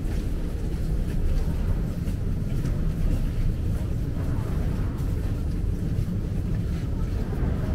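Steady low rumble of a busy metro passage as a crowd walks through, with faint voices and scattered footsteps.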